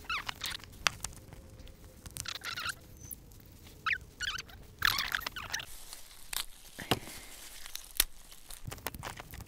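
A red snow crab being pulled apart by plastic-gloved hands: squeaky crinkling of the thin plastic gloves and sheet, broken by sharp cracks and snaps as the shell gives and the legs and carapace come away.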